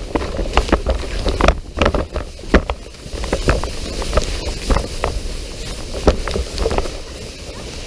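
Plastic sled being towed over snow, heard from a camera mounted on the sled: a steady scraping hiss with a low rumble and many irregular knocks and bumps as it jolts along.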